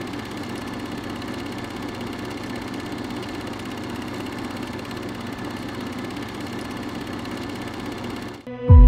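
Steady mechanical whirring of a film projector running as an intro sound effect. It cuts off suddenly just before the end, and music comes in with a deep boom.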